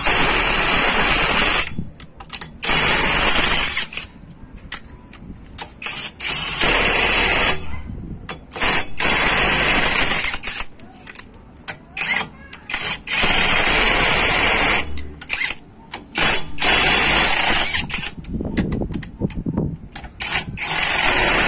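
Topshark TS-PW1 18-volt cordless impact wrench running on car wheel lug nuts, tightening them back on. It runs in about eight bursts of one to two seconds each, with short pauses and clicks between them.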